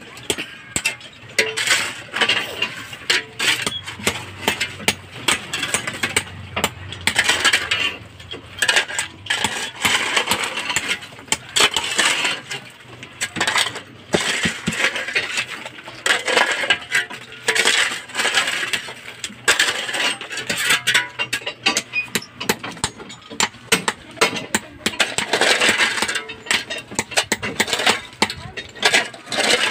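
Hand hammer and steel chisel chipping concrete, a quick irregular run of sharp metallic clinks, with broken concrete rubble clattering.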